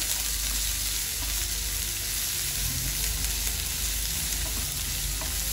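Chopped onion and tomato sizzling steadily in hot oil in a pan as they sauté, with a few faint clicks.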